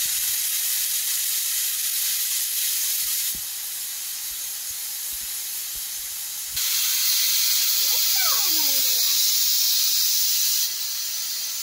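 Aluminium pressure cooker on a gas stove hissing steadily as steam escapes past its weight valve under pressure. The hiss drops in strength about 3 s in, rises again about halfway through, and drops again near the end.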